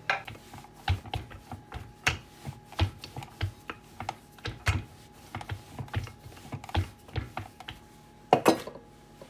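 Dough being rolled and worked on a wooden board: a wooden rolling pin and hands making an irregular run of light taps and knocks against the wood, two or three a second, with a louder double knock near the end.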